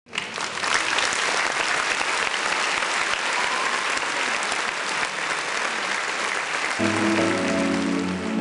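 Audience applauding. About seven seconds in, music with steady held notes starts under the clapping.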